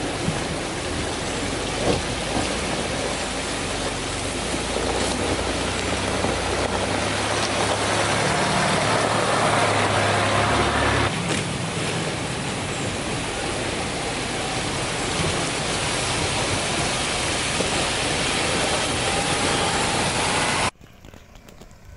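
Rushing river water with the engines of off-road 4x4s driving through the ford and past close by, one after another, the engine sound heaviest midway. The sound cuts off abruptly near the end, leaving a much quieter background.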